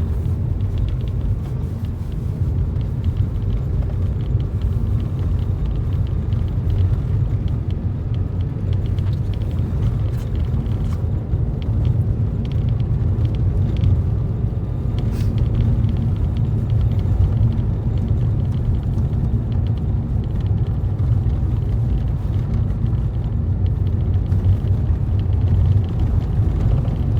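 Steady low rumble of a motor vehicle driving on a road, with a faint steady hum and a single short click about halfway through.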